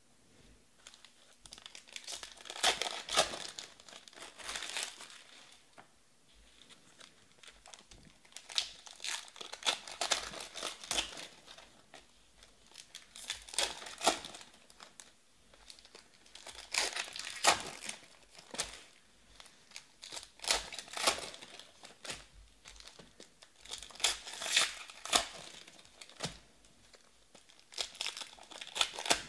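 Trading-card pack wrappers being torn open and crinkled by hand, in bursts of crackly rustling every few seconds with short quiet gaps between.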